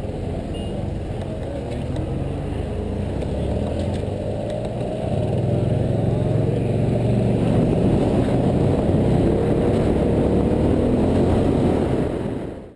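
Motorcycle engine running close to the microphone, getting louder about five seconds in with its pitch climbing as it accelerates away.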